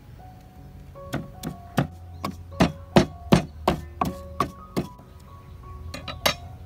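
Wooden pestle pounding in a terracotta mortar: about eleven sharp strokes at roughly three a second, then a few more knocks near the end.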